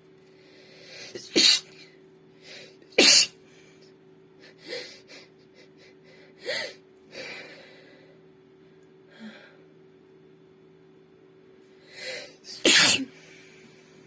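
A woman sneezing: three loud sneezes, two close together about a second and a half and three seconds in and a third near the end, each led by a quick intake of breath, with several softer sneezes in between.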